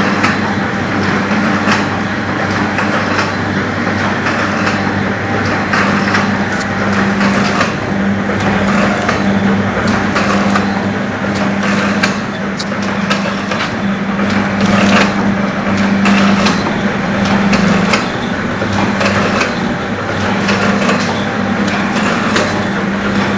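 Model 505 four-side-seal sachet filling machine running, filling perfume into sachets. A steady mechanical hum cuts in and out every second or two under a run of rapid clicks and clacks.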